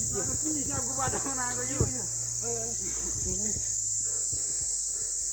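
A steady, high-pitched insect drone runs throughout, with faint voices talking in the first few seconds.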